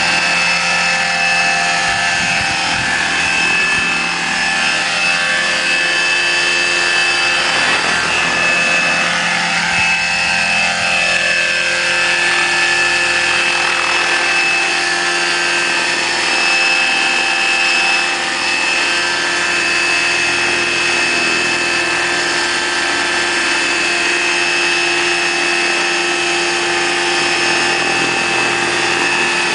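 Large electric-powered model helicopter of the Bell 214, 1.8 m rotor diameter, hovering and flying low: a steady high whine from the electric motor and drive, with the rotor noise beneath. One tone bends up and back down briefly about ten seconds in.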